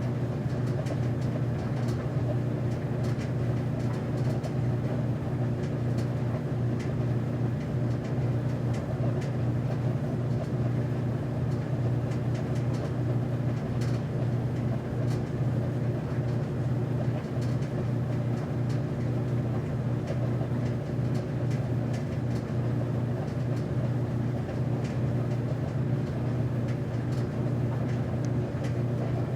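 Commercial laundromat washer-dryer running steadily: a constant motor hum with the drum revolving, and faint light clicks scattered over it.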